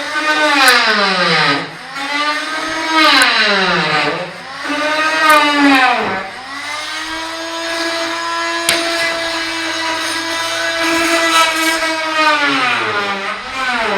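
Rockwell oscillating multi-tool cutting: its motor pitch sags and recovers three times as the blade bites into the work, then holds steady for several seconds before dipping again near the end. A single sharp click about nine seconds in.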